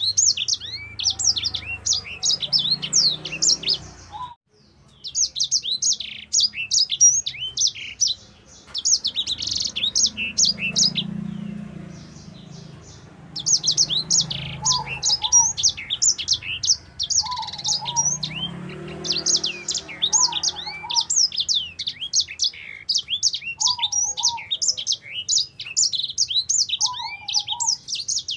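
Caged sanger (white-rumped seedeater) singing a long, fast song of high chirps and trills in extended phrases, with a few short pauses.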